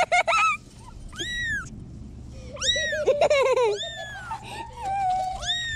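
Very young kittens mewing: about half a dozen high, thin cries, each rising and then falling in pitch, several close together around the middle.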